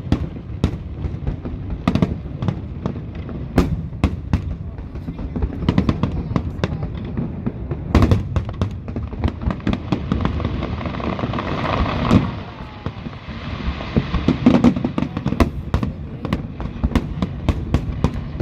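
Aerial fireworks display: shells bursting in quick succession, dozens of sharp bangs. A dense stretch of crackling builds from about ten seconds in and cuts off suddenly about two seconds later.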